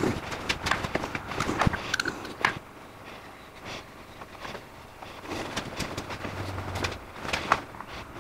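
Handling noise at a shop workbench: light knocks, taps and rustling as small parts and a can are picked up and set down, with footsteps, in two bursts with a pause between.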